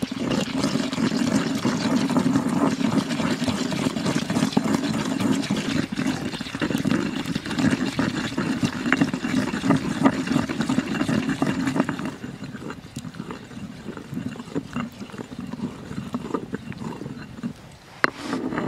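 Stone pestle crushing and grinding wet chilies, herbs and spices in a stone mortar: a continuous wet, gritty mashing with many small knocks of stone on stone. About twelve seconds in it thins to slower, scattered scrapes and taps, with a sharp knock near the end.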